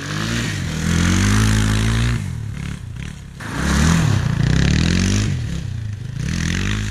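Yamaha Serow's single-cylinder four-stroke engine revving hard in three throttle bursts, its pitch climbing and falling with each one.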